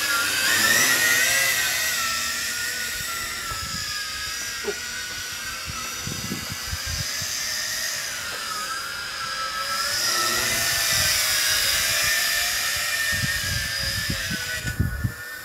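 The motors and propellers of a YiZhan Tarantula X6 quadcopter whine loudly in flight. The pitch wavers up and down as the throttle and direction change.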